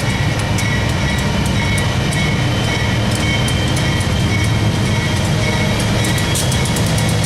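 Union Pacific empty coal train passing close by: a steady low rumble with a few held high tones, and wheels clicking sharply over the rail joints, the clicks coming faster near the end.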